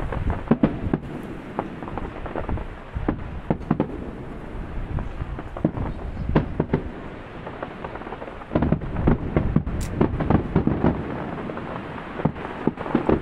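Aerial fireworks shells bursting in quick succession: many sharp bangs and crackles over a low rumble of distant booms, thickening into a dense volley about two-thirds of the way in.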